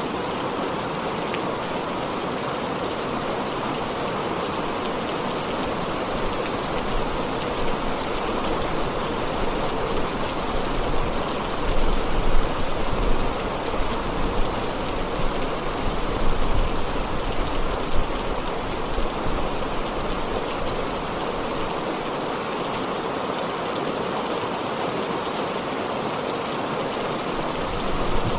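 Heavy rain falling steadily. A low rumble swells a little in the middle and fades again.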